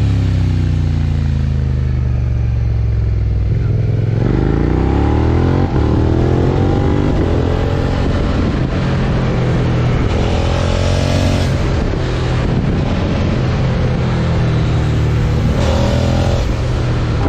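Suzuki SV650's 90-degree V-twin, with a Yoshimura R77 exhaust, riding downhill. The revs fall for the first four seconds as the engine slows the bike, then climb steeply about four seconds in and hold. They swell again around ten seconds and fifteen seconds.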